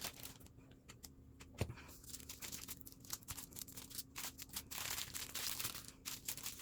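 Small plastic baggies of diamond-painting drills crinkling and rustling in short, irregular crackles as they are handled and sorted, with one soft thump about a second and a half in.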